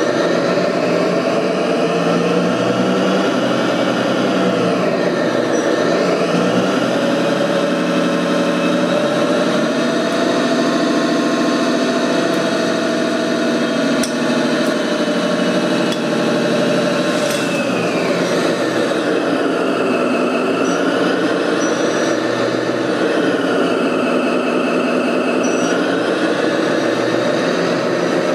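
Radio-controlled construction machine's motor running, its pitch rising and falling again and again over a few seconds at a time.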